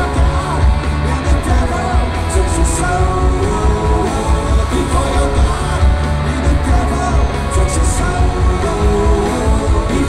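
Live rock band playing through a concert PA, heard from the audience: electric guitars, bass and drums under a male lead vocal, with heavy bass and cymbal hits.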